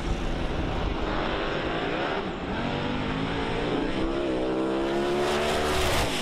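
Drag racing car engine at full throttle on a pass down the strip, its pitch climbing steadily through the middle of the run and then holding high until it cuts off suddenly at the end.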